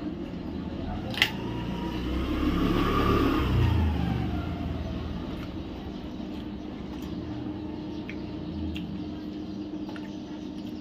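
A motor vehicle going past: its engine rumble swells to a peak about three seconds in, its pitch rising and then falling as it fades. A steady low hum runs underneath, and there is one sharp click about a second in.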